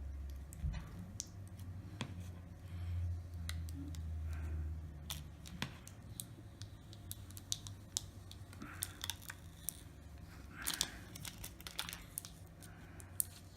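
Small sharp clicks, taps and scratchy peeling of a phone's old display and its adhesive backing being pulled off the frame by hand and tool. A low hum runs underneath for the first five seconds or so.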